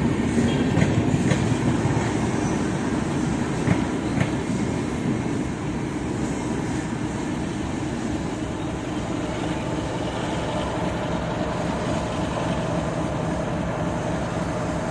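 Indian Railways express passenger train rolling past with a steady rumble, the wheels clicking over rail joints several times in the first few seconds.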